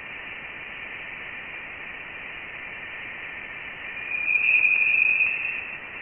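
Voyager 1 Plasma Wave Science instrument data played through a loudspeaker: a narrow, high hiss with faint steady tones, and about four seconds in a louder, high tone swells for over a second. These are plasma waves excited by electrons in the gas around the spacecraft, and their high pitch marks the denser plasma of interstellar space.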